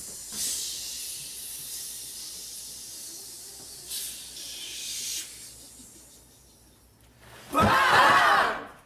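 A hiss lasting about five seconds, then near the end a group of teenagers shouting and cheering together for about a second.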